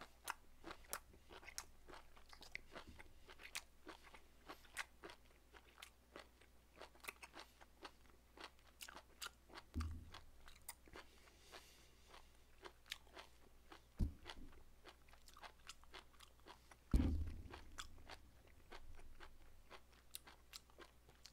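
Close-miked chewing of Korean beef omasum (cheonyeop): a steady, irregular scatter of short clicks from the mouth. A few louder low thumps break in, the loudest about seventeen seconds in.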